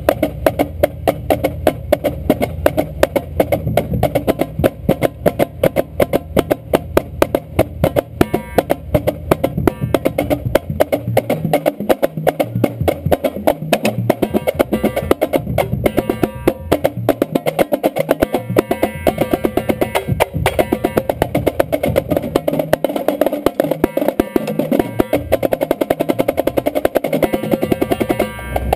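Marching drumline (snare drums, tenor drums and bass drums) playing a warm-up exercise. The tenor drum plays closest, under steady, fast, even stick strokes. The low bass-drum sound drops out twice for a few seconds, partway through and again near the end.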